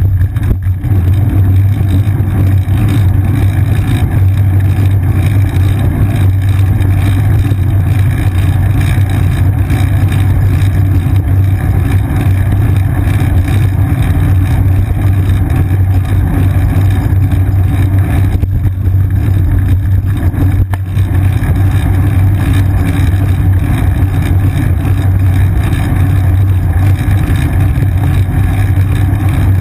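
Steady, loud rumbling drone of wind and road vibration picked up by a seat-mounted GoPro Hero 2 in its housing on a moving bicycle.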